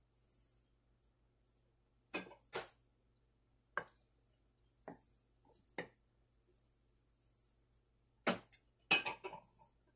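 A utensil knocking and clinking against a ceramic serving dish as pieces of potato and mutton curry are moved about: a few scattered sharp knocks, the loudest two near the end.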